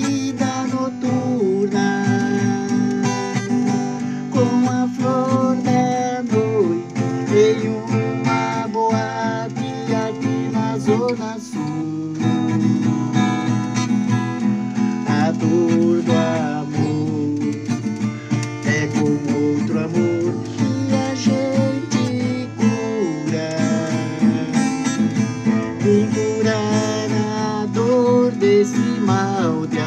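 Acoustic guitar strummed in a steady rhythm with picked melody notes over it.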